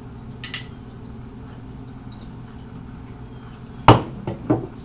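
Plastic makeup containers being handled and knocked together while rummaging for foundations: one sharp knock about four seconds in, then a few lighter clicks, over a steady low hum.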